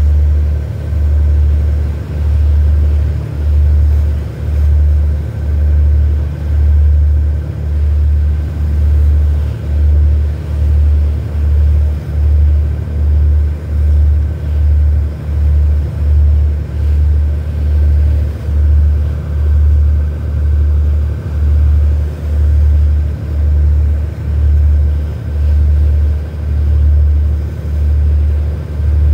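Low engine rumble that throbs evenly about once a second, with a faint steady whine above it.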